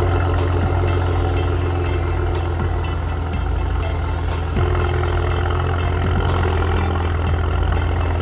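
2015 Maserati Ghibli SQ4's twin-turbo V6 idling steadily through its stock exhaust, picked up at the tailpipes. The level picks up slightly about four and a half seconds in.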